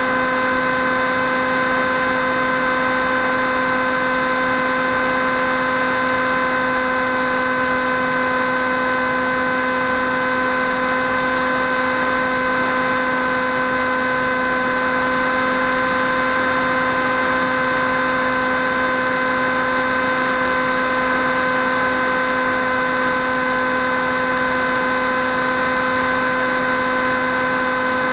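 Electric motor and propeller of a Swift 2 FPV model plane running at a steady throttle, heard from the onboard camera: a constant whine with a hiss of airflow, holding the same pitch throughout.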